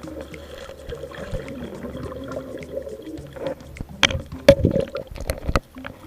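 Stream water sloshing and gurgling around a submerged action camera, with a few louder splashes between about four and five and a half seconds in.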